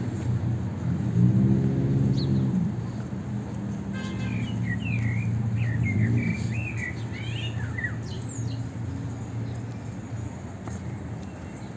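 Small birds chirping in a quick run of short rising and falling calls for a few seconds in the middle, over a steady low hum of street traffic. A vehicle engine is loudest in the first couple of seconds.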